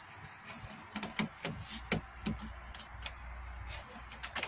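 Scattered light clicks and taps of a screwdriver on the sheet-metal shield over a flat-panel TV's T-con board as the shield is unscrewed and handled, with a quick cluster of clicks near the end.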